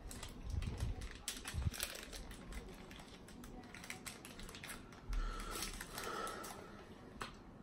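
Crinkling and small clicks of candy packaging being handled and opened, densest in the first two seconds and thinning out afterwards.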